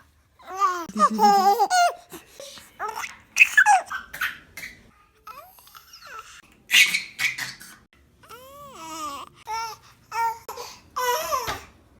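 A baby babbling, squealing and laughing in a string of short high-pitched bursts with brief pauses between them.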